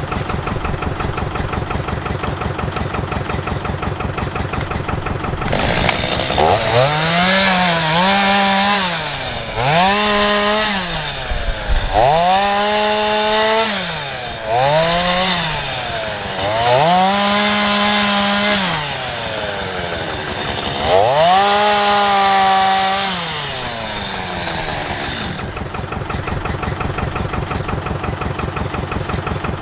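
Two-stroke chainsaw idling, then run up to full speed about six times, each burst lasting a second or two as it cuts into wood, dropping back between bursts and settling to idle for the last few seconds.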